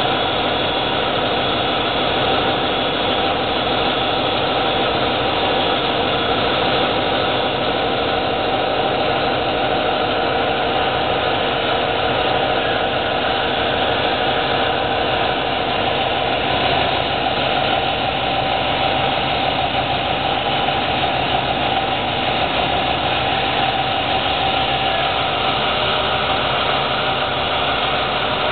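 Caterpillar D399 V16 diesel engine running steadily, heard close up, with a rapid, even pulse of firing throughout.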